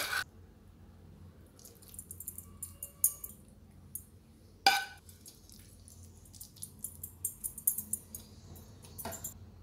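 Serving spoon clinking and scraping as curry is spooned into a bowl, with scattered light clicks and two sharper knocks, one at the start and one about five seconds in.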